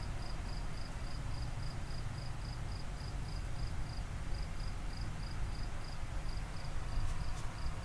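A cricket chirping in a steady, even rhythm of about four chirps a second, over a low, steady rumbling noise. Two faint clicks come near the end.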